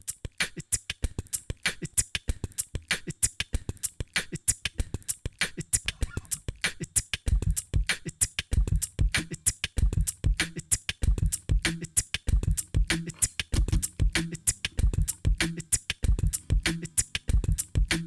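Beatboxed drum beat layered on a loop pedal: a fast, steady run of sharp hi-hat-like clicks, with deep kick-drum-like thumps joining about seven seconds in.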